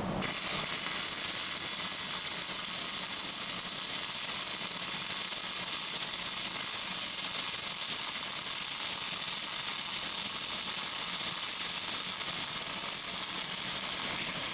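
Flux-cored arc welding: a steady arc running a fillet weld into the inside corner of steel angle, starting at once and stopping suddenly at the end. The machine is set at about 22.5 volts with the wire feed speed a little lighter than wanted.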